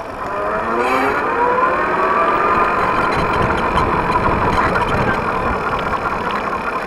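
Electric trike motor whining as it speeds up: the pitch rises over the first few seconds, then holds steady at cruising speed, over a low rumble of wind and road noise.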